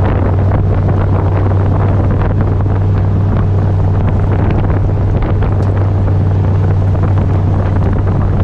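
A steady, loud rumble with a constant low hum, overlaid by wind buffeting the microphone.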